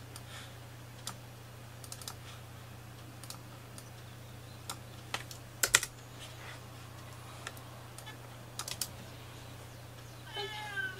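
Computer keyboard typing: scattered, irregular keystrokes, loudest in a quick cluster about halfway through, over a steady low hum.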